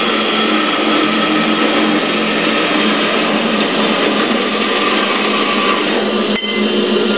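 Carolina horizontal metal-cutting band saw running and cutting through square tubing on a heavily used blade, fed aggressively, a steady sawing noise with a steady whine. A sharp clack near the end as the cut goes through and the piece falls off.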